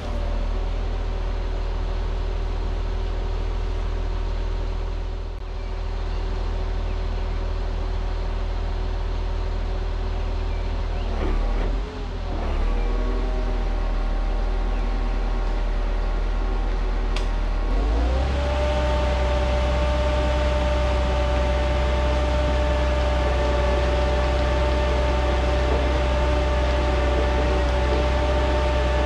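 The diesel engine of a converted Rottne H20 harvester runs steadily at low revs. After a brief wobble in the note about 11 to 12 seconds in, it revs up at about 18 seconds and holds a higher steady speed.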